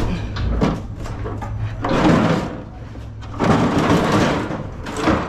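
Heavy sliding gate of a cattle trailer being heaved along its track: a few knocks, then two loud scraping drags.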